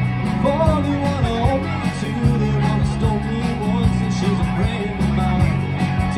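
Live rock band playing: a singer's melody over electric guitar, keyboard and drums, with a steady beat.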